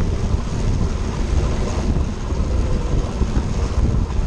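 Steady wind rumble over a handlebar-mounted action camera on a track bike riding at race speed.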